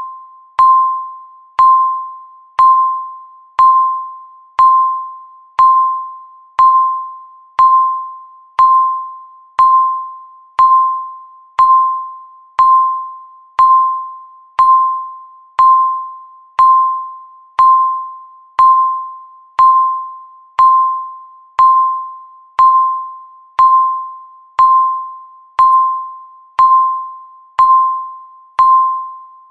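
Countdown timer beeping once every second, about thirty times in all: a short electronic beep of one steady pitch, each starting sharply and fading away before the next.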